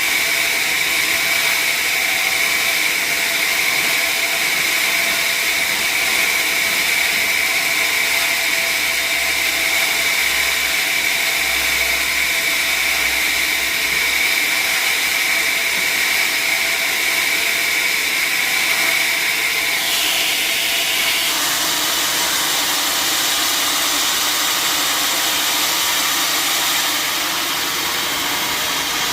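Sawmill saw running through an acacia log, a steady loud mechanical whine over a noisy hiss. The whine steps up to a higher pitch about two-thirds of the way through.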